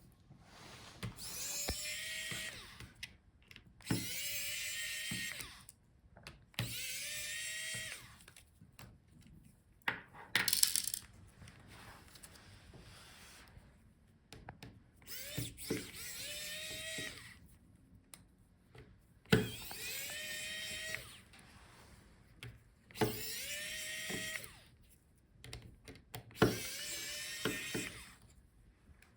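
Small electric screwdriver running in short spurts, about eight times, each run rising quickly in pitch and then holding, as it backs out the laptop's display hinge screws; light handling of small parts between runs.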